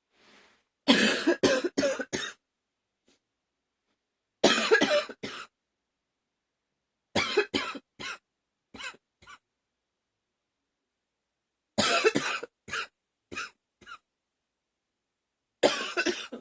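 A woman's rough coughing fit: five bouts of coughing a few seconds apart, each a quick run of several coughs.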